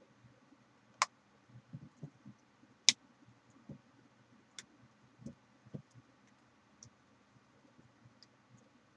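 Small plastic clicks and light handling knocks from a computer case fan being fitted on a Kraken G10 GPU bracket: two sharp clicks about one and three seconds in, then scattered fainter taps.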